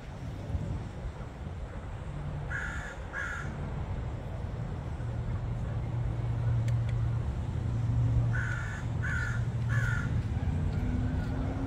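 A crow cawing outdoors: two caws about two and a half seconds in, then a run of three about eight seconds in, over a steady low hum.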